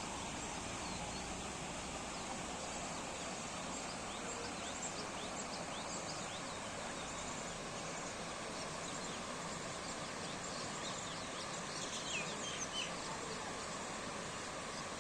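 Steady rush of a small man-made waterfall, with birds chirping over it in short calls that cluster about twelve seconds in.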